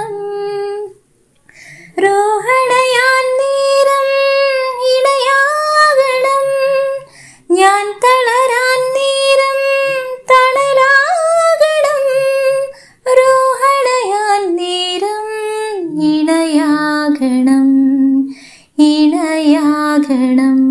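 A woman sings long, held notes without clear words in four phrases, with short breaks between them. The notes sit higher in the middle and settle onto lower held notes near the end.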